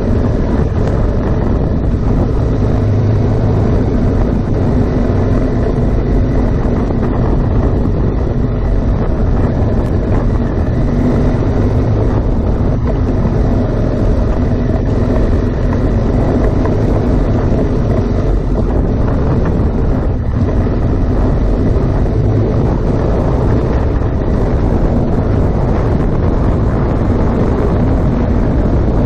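BMW R1200GS Adventure's boxer-twin engine running steadily while riding on the road, mixed with steady wind noise on the microphone.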